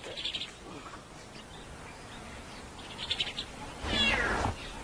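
Young lion cubs mewing: short high calls near the start and again about three seconds in, then a longer call that falls in pitch near the end.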